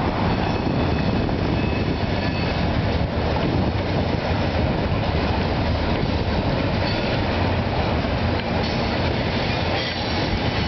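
Freight cars of a CSX train (tank cars and covered hoppers) rolling past close by: a steady rumble and clatter of steel wheels on the rails, with a thin high wheel squeal coming in now and then in the second half.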